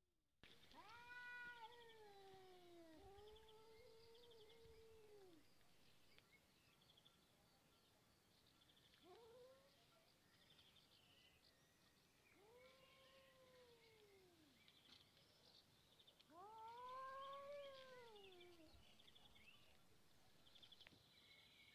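Cats in a face-off yowling at each other: five faint, drawn-out caterwauls that rise and fall in pitch, the first two back to back, with the loudest about three-quarters of the way through. These are threat calls of a standoff that can end in a fight.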